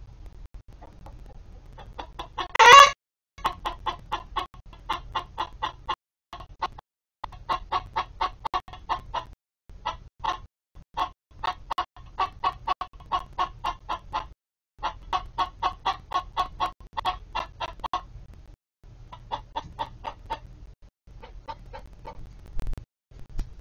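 Domestic hens clucking: one loud squawk about three seconds in, then runs of quick clucks, about five a second, in bursts with short breaks.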